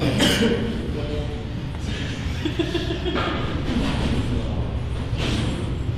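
Low, indistinct voices with a chuckle over faint background music.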